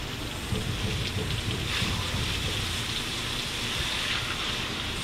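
Garden hose spray nozzle hissing as water rinses fish on a fillet table, the spray pattering on the fish and the table top. The spray grows stronger about two seconds in.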